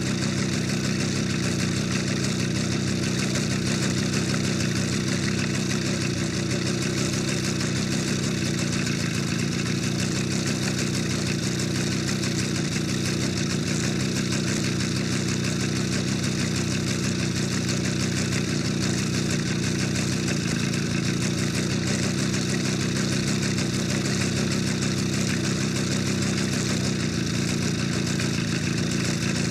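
Motorcycle engine idling steadily, holding an even pitch with no revving.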